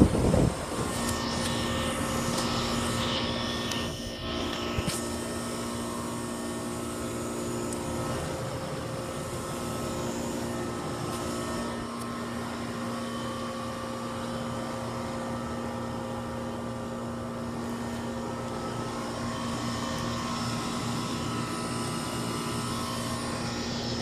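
Goodman heat pump outdoor unit running: a steady mechanical hum from the compressor and condenser fan, holding a few constant tones.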